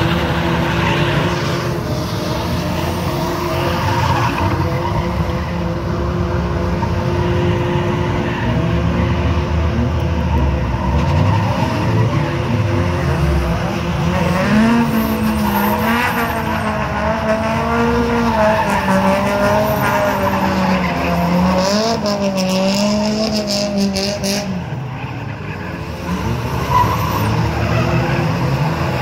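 Drift cars running hard: engines revving up and down in waves over the squeal and skid of sliding tyres.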